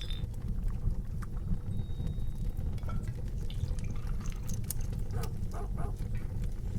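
Tavern ambience: a steady low murmur of a crowd with scattered light clinks of glasses, dishes and cutlery.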